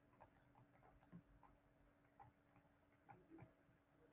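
Near silence: faint room tone with a low steady hum and a few faint, irregular clicks.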